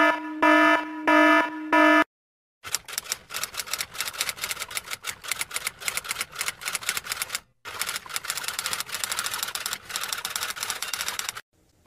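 Four short electronic beeps about half a second apart, then rapid typing clicks that run for about nine seconds, with a brief pause partway through.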